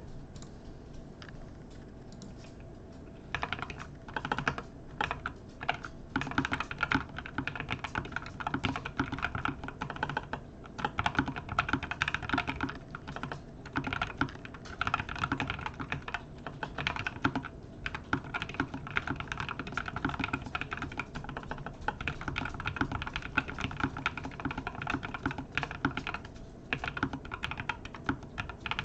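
Typing on a NuPhy Air75 V2 low-profile mechanical keyboard with NuPhy Cowberry switches: rapid, continuous key clacks with brief pauses, starting about three seconds in.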